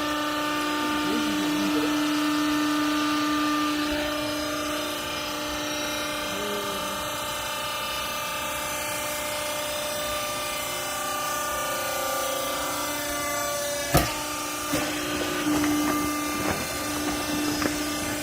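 A semi-automatic horizontal rags baler running: a steady machine hum with a held whine, then a sharp clack about fourteen seconds in followed by a few lighter knocks.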